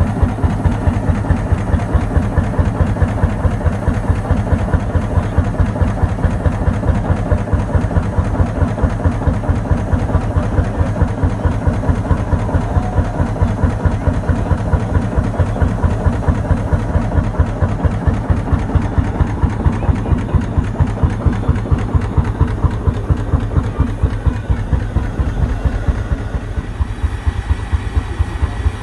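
Lanz Bulldog tractor's single-cylinder two-stroke hot-bulb engine idling, an even, steady beat of exhaust pulses.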